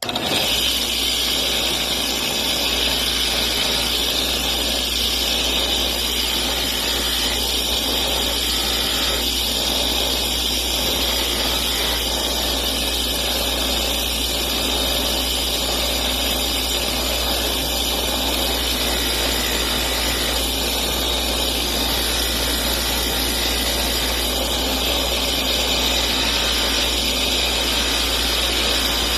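Bench buffer running steadily with a 4-inch cloth buffing wheel, a pipe stem being buffed on the plain wheel to clear out red rouge residue. The motor's low hum and an even hiss come in suddenly at the start and hold steady.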